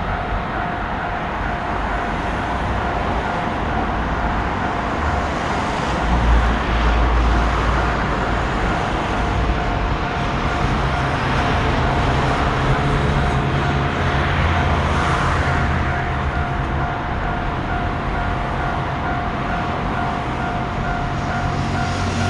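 Japanese railroad crossing warning bell ringing continuously in a fast repeating pattern, over the rumble of a passing train that swells about six seconds in and again midway.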